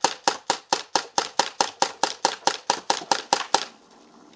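CO2 gas-blowback airsoft Uzi firing a rapid string of about sixteen shots, roughly four to five a second, that stops about three and a half seconds in.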